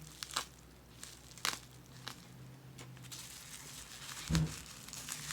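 Razor packaging being opened and handled by hand: crinkling wrap with a few sharp clicks, and a dull thump about four seconds in.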